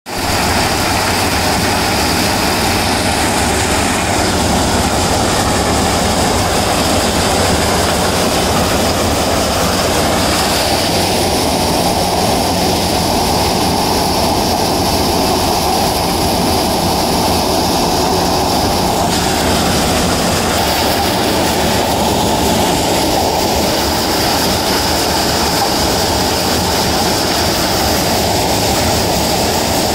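Maize thresher running steadily, a loud continuous mechanical noise.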